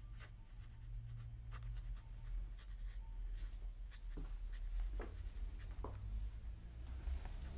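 Pen scratching on paper in short, irregular strokes over a low steady hum.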